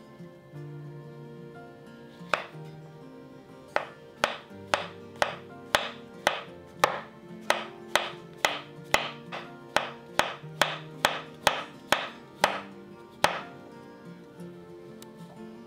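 Chef's knife slicing button mushrooms on a wooden cutting board, the blade knocking on the board about twice a second in a run of some twenty cuts. The cutting starts a couple of seconds in and stops a couple of seconds before the end.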